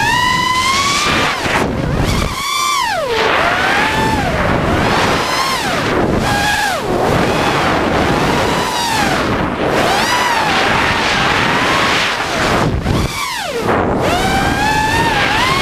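Brushless motors of an ImpulseRC Reverb FPV quadcopter whining, the pitch swooping up and down as the throttle changes, with wind rushing over the onboard microphone. The whine drops away briefly twice, once a couple of seconds in and again near the end, as the throttle is cut back.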